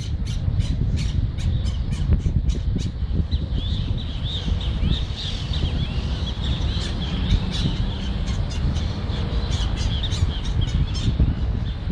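Birds squawking and chattering: a quick run of sharp, harsh calls in the first few seconds, then a steady twittering chorus, over a low rumble.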